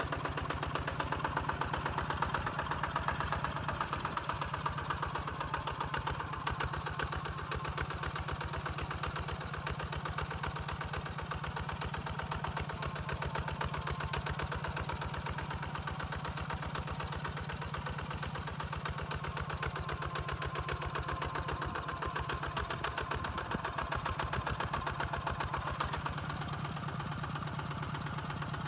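Two-wheel walking tractor's single-cylinder diesel engine running steadily under load, pulling a plough through dry field soil, with a rapid, even beat of firing strokes.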